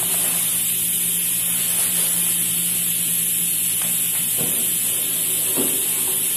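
Steady loud hissing from a pot cooking on a lit gas burner, with a low hum under it. A few faint plastic rustles and clicks come as the new air fryer is unwrapped, about two-thirds of the way through.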